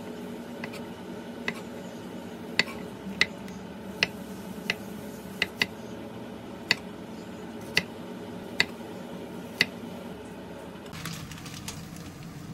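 Metal utensil clinking against cookware about a dozen times at uneven intervals, each click briefly ringing, over a steady low hum that stops about eleven seconds in.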